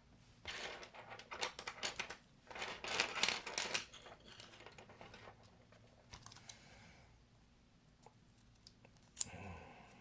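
Hands rummaging in the plastic packaging of a phone-battery replacement kit: rustling and crinkling in bursts, then quieter handling and a single sharp click near the end.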